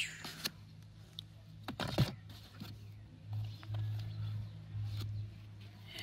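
Mud-covered plastic toys being handled: a few light clicks and knocks, the loudest about two seconds in, over a low steady hum that grows louder in the middle.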